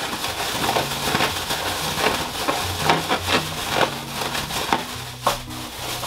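A thin plastic bag crinkling and crackling as it is shaken and rubbed by hand, with cut cucumber and daikon pieces tumbling inside to coat them in salt and seasoning.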